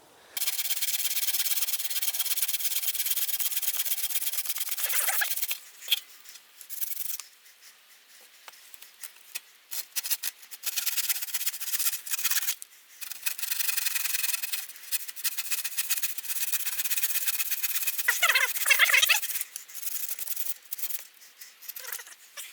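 Hand tool cutting into a log to shape a point on its end: long runs of fast, steady scraping strokes with short pauses between them. A brief squeak near the end.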